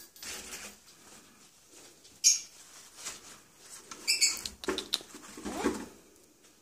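Cockatoo making short high squeaks: one about two seconds in and a quick run of chirps around four seconds, followed by two lower chattering calls.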